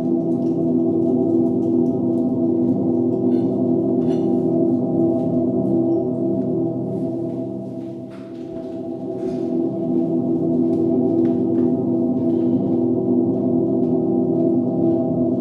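Soundtrack drone: a steady, loud drone of several held low tones with a gong-like ring. It dips briefly about eight seconds in.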